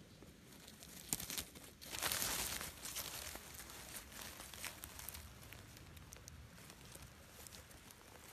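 A hand rustling and scraping through dry leaf litter and loose soil while digging out a clump of plants. There is a louder scrabbling stretch about two seconds in, with small crackles and snaps of twigs and leaves throughout.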